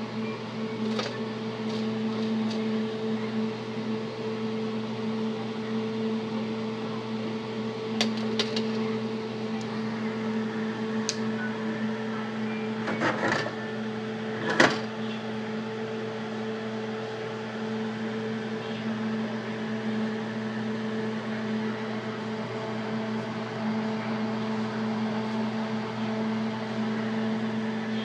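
Steady machine hum, with a few light metal clinks and a sharper one about halfway through, as a metal spoon knocks against a steel tray and wire rack.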